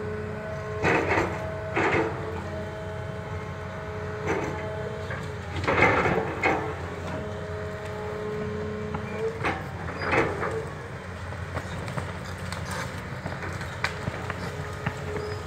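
Caterpillar excavator's engine running under load, with a steady hydraulic whine that comes and goes as its bucket pushes against a large honey locust tree. Loud cracks and knocks of wood and bucket break in about a second in, at two seconds, around six seconds and near ten seconds.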